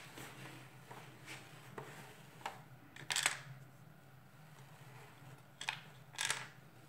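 Hard plastic parts of a Dyson DC37 vacuum cleaner being handled and pressed together by hand: scattered light clicks and knocks, with two louder short scraping rubs, one about three seconds in and one near the end.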